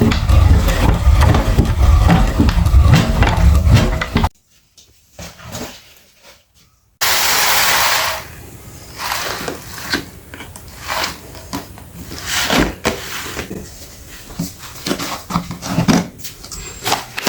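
Electric meat grinder running loud with a low rumble for about four seconds, then stopping abruptly. After a short pause and a brief loud hiss, there is irregular crunching and cracking as something hard is ground through it.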